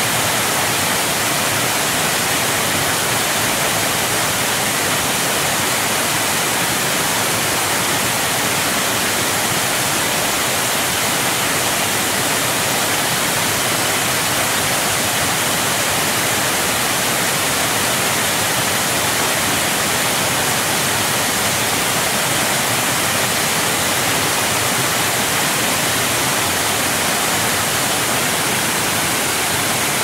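Waterfall: a steady, even rush of falling water, mostly hiss with little low rumble.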